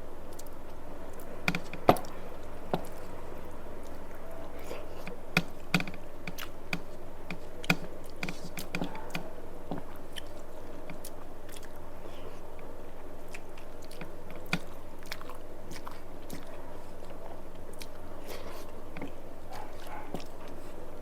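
Close-up chewing and mouth sounds of a person eating rice and curry: soft wet smacks and irregular sharp clicks, a few of them louder, over a steady low background hum.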